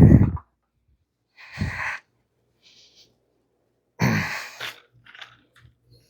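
Several short puffs of rushing air with no pitch, the loudest about four seconds in, followed by a few faint ticks near the end.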